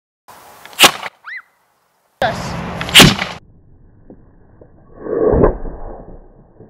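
Propane combustion potato cannon firing: a sharp bang about a second in and another sharp bang about two seconds later, followed by a softer, longer rushing sound near the end.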